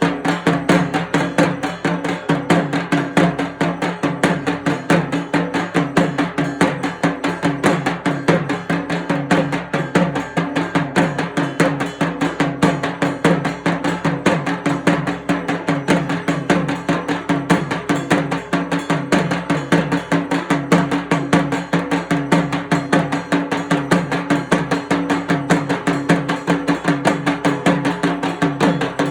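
Dhak, the Bengali barrel drum beaten with thin sticks, played in a fast, dense, unbroken rhythm.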